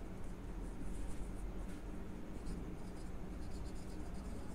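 Marker writing on a whiteboard: faint, irregular strokes and light squeaks as the words are written, over a low steady hum.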